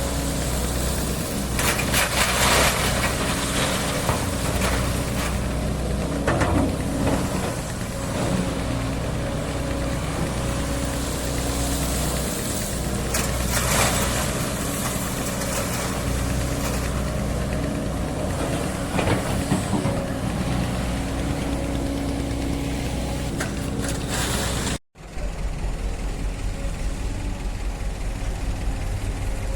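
Hydraulic excavator's diesel engine running steadily, with loud rushing bursts of noise a few times over it as it works. The sound cuts out for an instant near the end and carries on duller.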